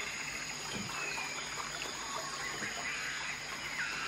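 Water lapping and trickling around a Bornean elephant wading at a river bank, over a steady high drone of rainforest insects.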